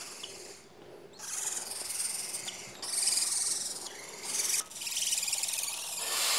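Four-week-old barn owl chicks giving their hissing, rasping begging calls: a run of long hisses, one after another with short breaks between them.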